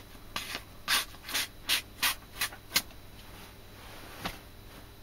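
A quick run of about six short scrapes or rubs, roughly three a second, then a single click a little over a second later.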